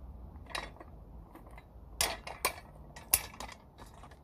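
Metal parts being worked into place by hand, giving a handful of sharp clicks and clunks, the loudest about three seconds in, over a faint low hum.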